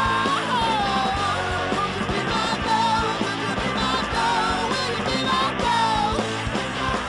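Rock music from a full band: a singer's voice over guitars and drums, in a punk-rock style.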